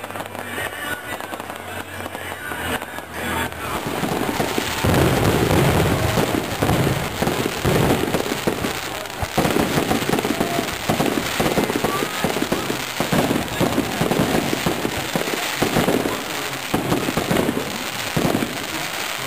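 Aerial fireworks bursting one after another with bangs and crackling. They grow louder and denser about four seconds in and keep pulsing in quick volleys.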